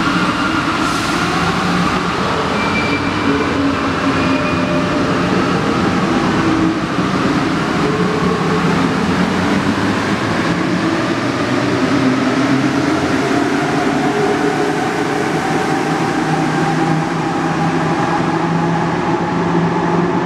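Alstom NS-16 rubber-tyred metro train pulling out of the station and accelerating, its traction motors whining in several tones that rise slowly in pitch over a steady running rumble.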